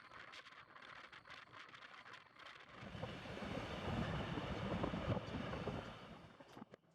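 Rushing wind and running noise from a Rhaetian Railway train in motion. It swells loudly for about three seconds midway, then fades near the end.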